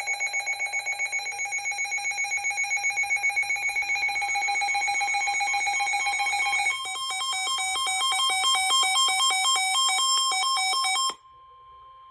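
Weather alert radio sounding its alarm for an incoming warning: a fast-pulsing electronic beep for about seven seconds, then a different, higher beeping pattern. It cuts off sharply about eleven seconds in, leaving the broadcast's steady warning tone faint for another second.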